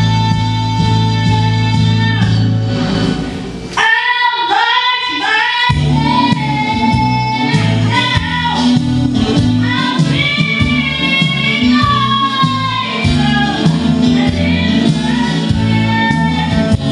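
A young girl singing solo into a microphone over backing music. She opens on a long held note; about four seconds in the bass drops out for a couple of seconds while she sings quick runs, then the full backing comes back in.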